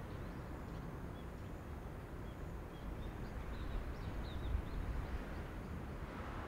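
Outdoor ambience: a steady low rumble of background noise with faint bird chirps scattered through it, mostly in the middle.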